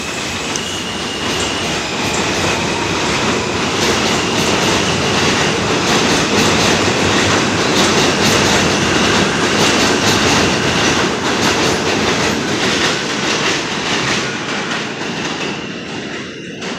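R160A subway train running along the elevated steel structure, its wheels clattering over the rail joints. The rumble builds to its loudest about halfway through, then fades as the train pulls away.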